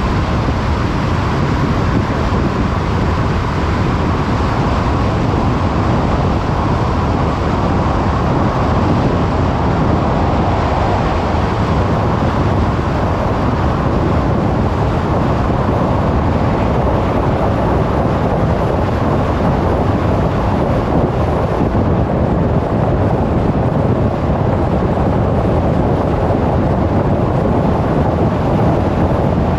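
A car driving along a road: steady, unchanging road and tyre noise with wind, heavy in the low range.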